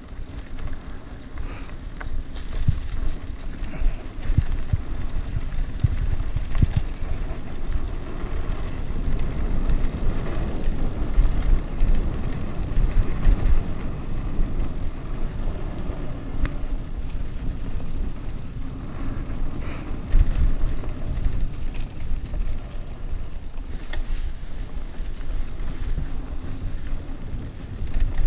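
A mountain bike rolling fast down a dry dirt trail: a continuous low rumble of wind on the microphone and tyres on dirt, rising and falling with speed, with scattered sharp knocks and rattles from the bike over bumps.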